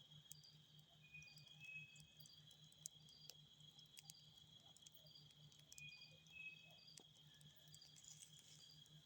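Faint forest ambience: a steady high insect drone, with short paired chirps every few seconds, scattered ticks, and a low, fast, even pulsing underneath.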